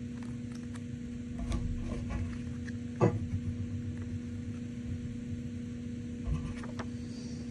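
Cardboard pieces joined by a metal fastener being handled and turned over, with faint rustles and one sharp tap about three seconds in, over a steady electrical hum.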